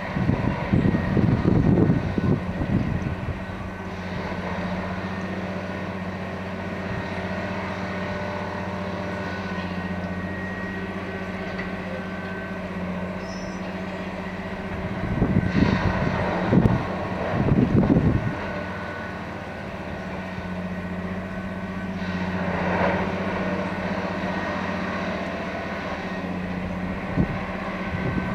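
Multiple tie tamper working on railway track: its engine runs with a steady low hum, broken by louder rough bursts of machine noise near the start, twice around the middle and once more about two-thirds in.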